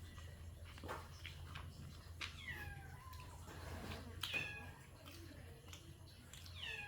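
A cat meowing about three times, each call falling in pitch, with a few light clicks between.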